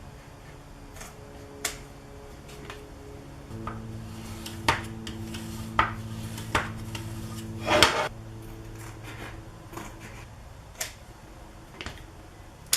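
Cutting tools being handled while a thin cork sheet is cut into strips: a series of sharp taps and clicks, with one longer clatter about two-thirds of the way through. A steady low hum comes in a few seconds in and fades later.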